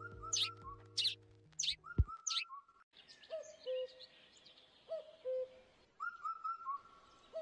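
Birds singing: high chirps over sustained background music that cuts off with a thump about two seconds in. After that a bird repeats a low two-note call every couple of seconds, a short higher note and then a longer lower one, among lighter chirping.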